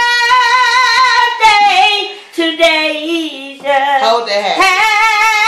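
A woman singing solo in a high voice, holding long notes with a strong vibrato. About halfway through she steps down through a few lower notes, then rises again into another long held note.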